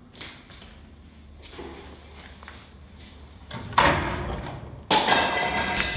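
Metal door rattling and scraping, two loud sudden bursts about a second apart near the end, the second with a high metallic squeal; a small knock comes right at the start.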